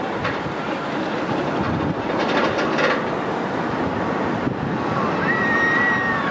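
Roller coaster train rolling over the crest and along the top of the track, its steel wheels rumbling and clattering on the rails, with a stretch of louder rattling about two seconds in.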